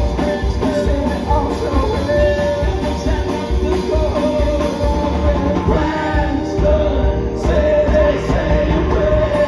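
Live band performance of an alt-country rock song: electric guitar and keyboard over a steady low beat, with men singing into microphones.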